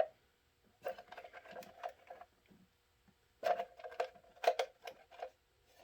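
Ratchet wrench clicking in two short runs of quick ticks while tightening the bolts that hold the grille brace.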